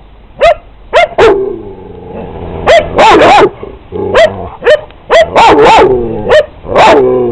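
A dog barking loudly and repeatedly, sharp barks coming singly and in quick runs of two or three, with a falling whine-like tone trailing after several of them.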